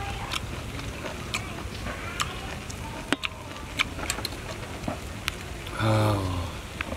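Metal tongs and a thin skewer clicking against cooked snail shells, a scattering of sharp single clicks over a low steady background rumble. About six seconds in, a short wordless vocal exclamation, falling in pitch.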